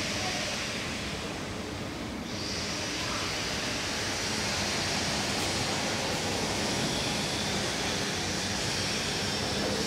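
2012 SMW traction elevator car travelling up its shaft: a steady rushing hiss of air and running noise over a low rumble, the hiss growing brighter about two seconds in.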